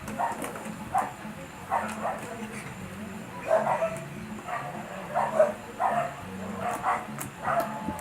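A dog barking in short, repeated barks, about a dozen in all, spaced roughly half a second to a second apart, over a low steady hum.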